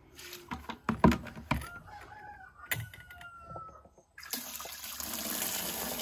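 Knocks of a plastic bucket being set under a tank tap while a rooster crows, then, about four seconds in, water suddenly gushing steadily from the rainwater tank's tap into the plastic bucket.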